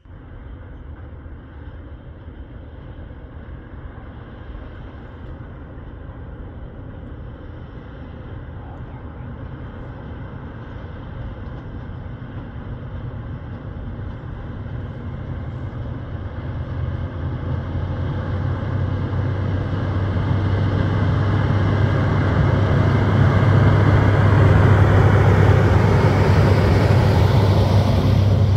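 A diesel locomotive hauling a freight train approaches and passes close by, its engine a low steady drone that grows steadily louder and is loudest near the end.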